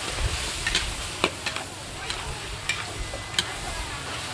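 Food sizzling in hot oil in a large aluminium wok, stirred with two metal spatulas that scrape and clink against the pan several times.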